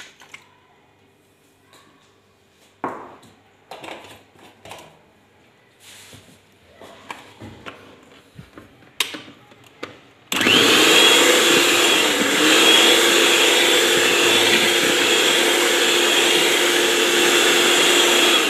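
Electric hand mixer switched on about halfway through, its beaters whirring steadily through thin crepe batter of eggs, milk, sugar and oil. The whine dips in pitch briefly a couple of seconds after it starts, then holds steady. Before that, a few light knocks of the bowl and beaters.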